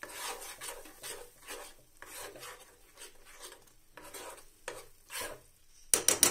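Metal spoon scraping and stirring a thick, dry garlic chutney paste in a nonstick kadhai, with rasping strokes about twice a second. Near the end come a few sharp clinks of the spoon against the pan, louder than the stirring.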